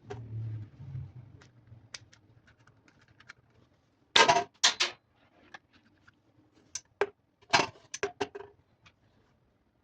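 Sharp clicks and knocks of small hard objects, with a group of louder knocks about four seconds in and another about seven and a half seconds in.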